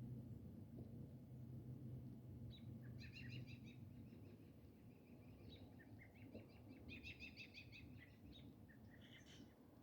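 Faint songbird chirping in quick, repeated phrases, a few times, over a low steady background rumble.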